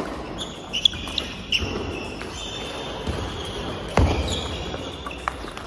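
Table tennis balls clicking off rackets and the table in quick, irregular rallies, with overlapping hits from more than one table in a large echoing hall. A heavier thump comes about four seconds in.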